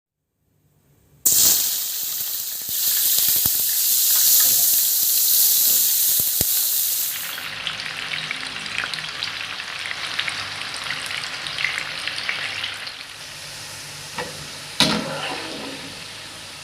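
Food dropped into hot oil in a pan, starting with a sudden loud sizzle about a second in that eases to a softer, crackling fry about halfway through. A single knock near the end.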